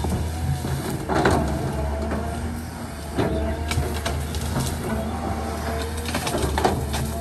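Caterpillar hydraulic excavator's diesel engine running under load while it clears brush, with a faint hydraulic whine and a few sharp cracks as vegetation breaks, about a second, three seconds and six and a half seconds in.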